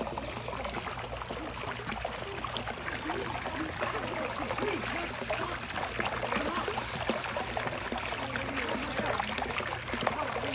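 Pool waterfall pouring and splashing steadily into the pool.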